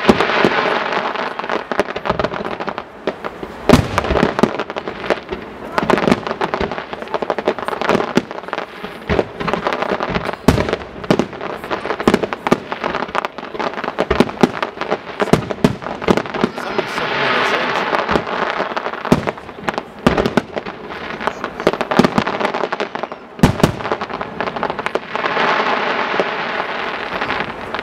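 Professional aerial fireworks display: a rapid, irregular run of shell launches and bursts, with two longer stretches of steady hiss about 17 and 25 seconds in.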